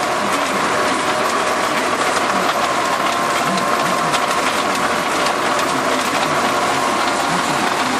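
Tractor engine running steadily, with a fast mechanical rattle over it.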